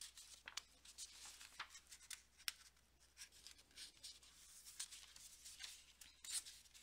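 Near silence with faint, scattered rustles and clicks of a paper book's pages being handled.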